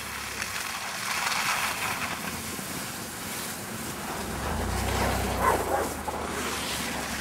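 Mitsubishi Outlander SUV driving through loose snow and passing close by: engine running under throttle with tyres churning the snow, and wind on the microphone. The engine hum grows stronger about halfway through.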